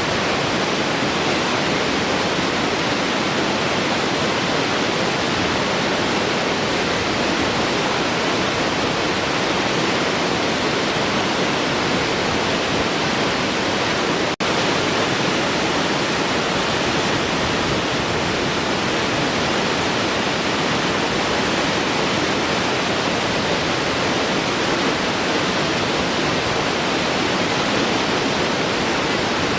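Large waterfall, water rushing and crashing in a steady, unbroken roar, with a split-second dip in level about halfway through.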